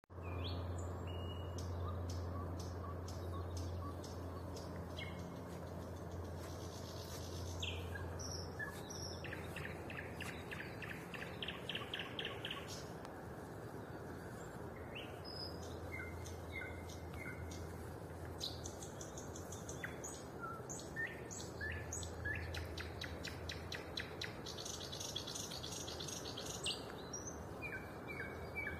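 A songbird, which the uploader takes for a nightingale, sings in separate phrases of loud whistles and strings of rapid repeated notes, with short pauses between them. A low steady hum runs underneath.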